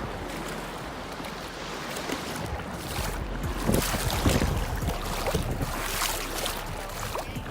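Small waves washing in at the shoreline, with wind buffeting the microphone.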